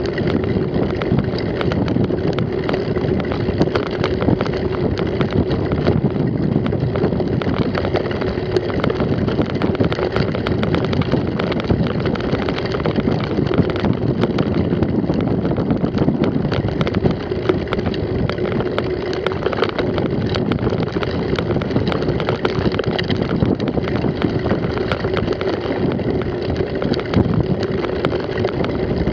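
Mountain bike riding fast over a bumpy grass track: steady rolling and drivetrain noise with constant small rattles and knocks from the rough ground, and wind on the microphone.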